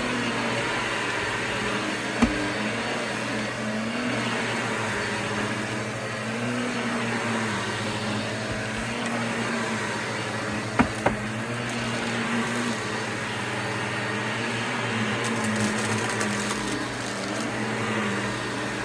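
Vacuum cleaner running steadily, its tone rising and falling every couple of seconds, with a few sharp clicks of debris being sucked up: once about two seconds in and twice in quick succession near the middle.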